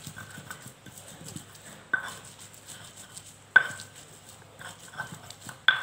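Stone pestle grinding chillies on a flat stone mortar (ulekan): uneven scraping with irregular knocks of stone on stone, three of them sharper and louder, about a second and a half apart.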